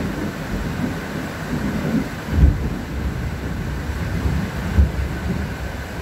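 Steady rain falling, with a low rumble underneath and two short, heavier low thumps about two and a half and five seconds in.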